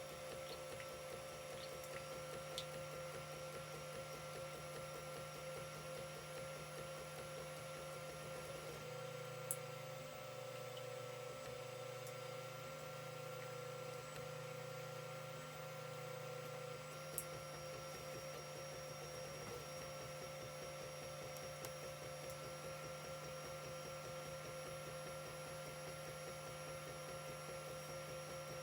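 Creality CR-10 3D printer running a print, its stepper motors giving a steady whine of several tones over fan noise. The motor sound changes about a third of the way in and again a little past halfway, with a few faint ticks.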